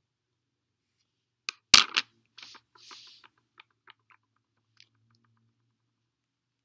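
A slim red splicing tool, probably a fid, is put down on a hard table top with a quick clatter of knocks about one and a half to two seconds in. Softer rustling and small clicks follow as hands work the braided rope.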